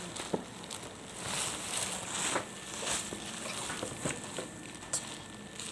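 Shiny black plastic packaging rustling and crinkling as it is handled, with scattered sharp crackles.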